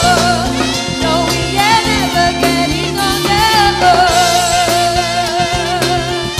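A live band playing a pop song, with a woman singing long, wavering notes over bass, guitar, drums and keyboard.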